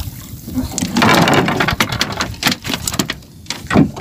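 Splashing and dripping water, then a few sharp knocks on wood, as a hooked trevally is hauled out of the sea over the side of a wooden outrigger boat and lands on the deck boards.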